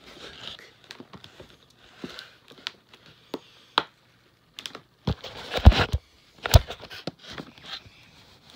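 Hands handling packaging: irregular crinkling and tearing with scattered clicks, and a few heavy knocks about five and six and a half seconds in.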